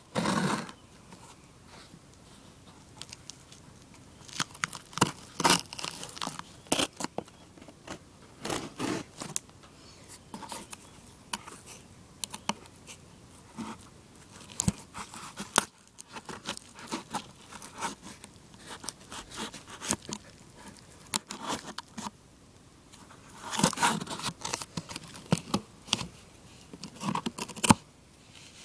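Scissors cutting and tearing through packing tape along a cardboard box seam, with irregular scrapes, crinkles and clicks of tape and cardboard in uneven bursts, the busiest about five seconds in and again near the end.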